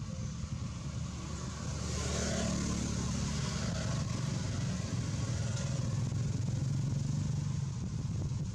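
Motor vehicle engine running and passing by: a low steady hum that swells about two seconds in and shifts in pitch near the end.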